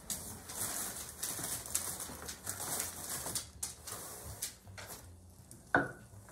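Dry rustling and crinkling of a Rice Krispies box and its inner liner bag as the cereal is tipped out into a wooden mortar, with small clicks throughout. A single sharp knock comes near the end.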